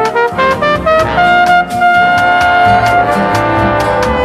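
Light-music band recording with a brass section: a brass lead holds one long note in the middle of the passage over a steady beat.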